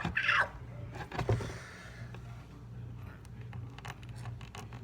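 Small handling noises as a knife works on a silicone bracelet bead: a sharp click at the start with a short scrape right after, another click about a second in, then scattered faint ticks over a steady low hum.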